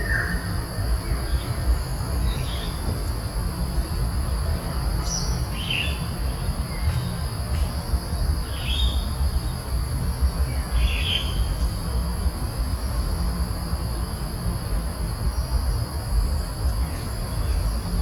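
Short high bird chirps, about seven in all and a second or more apart, over a steady high insect drone. A steady low rumble runs underneath, like wind.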